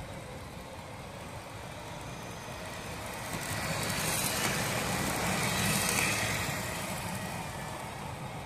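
Battery-powered Lego passenger train running past on plastic track, the rattle of its wheels and hum of its motor swelling about four seconds in and fading away as it goes by, over a steady background hiss.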